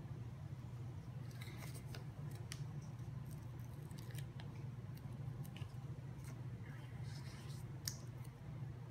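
Faint hand work on paper: scattered short scratches and small sharp clicks, as of writing on or snipping a planner sticker. A steady low hum runs underneath.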